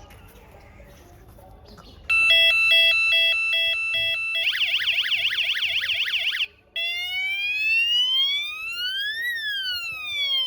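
Electronic siren of a small police light's built-in speaker, cycling through its tones: after about two seconds of faint background it starts a high-low two-tone beep, switches to a fast warbling yelp, cuts out briefly, then plays a slow wail that rises and falls.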